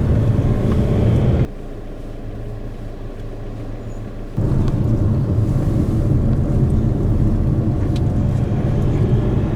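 Steady low rumble of road and engine noise inside a moving car. It drops suddenly to a quieter level about a second and a half in and comes back just as suddenly about three seconds later.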